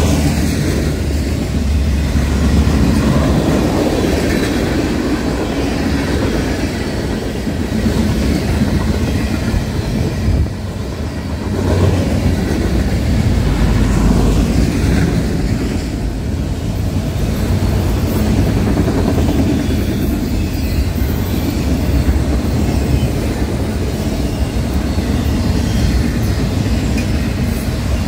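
Mixed freight train's cars, autoracks and boxcars, rolling past close by: a steady, loud running of steel wheels on the rails, briefly quieter about ten and a half seconds in.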